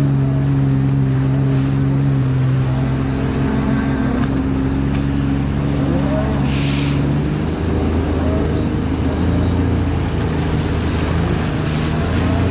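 Jet ski engine running steadily, its pitch dropping about halfway through as the throttle eases off, with a brief hiss a little before.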